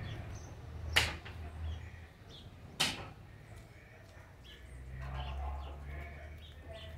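Two sharp knocks, about two seconds apart, over a faint low rumble.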